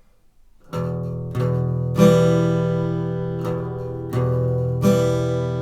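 Acoustic guitar strummed in the galop pattern: two groups of three strokes (down, up, then an accented down stroke that takes in the bass strings), with the chord ringing between strokes.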